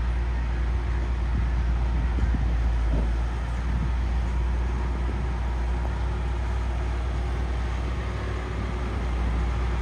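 Heavy diesel engine of earthmoving or haulage machinery running steadily, a continuous low rumble.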